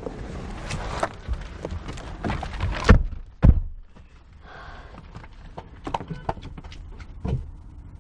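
Car doors being handled as people get into a saloon car: scattered clicks and knocks, with two heavy door thumps about three seconds in.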